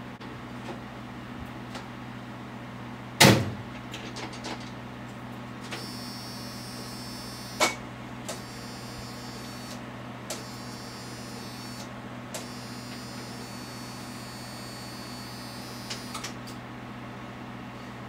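A 1995 Jeep failing to start: sharp clunks and clicks over a steady hum, with no engine cranking or catching. The starter does not turn over, which the owner puts down to a low battery. A faint high-pitched tone comes and goes through the middle.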